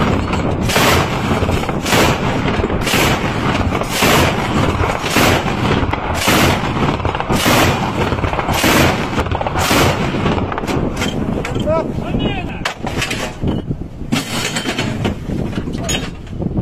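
Twin-barrel anti-aircraft gun firing repeated bursts, a sharp report about once a second over a dense rattle. After about ten seconds the reports turn shorter and more irregular.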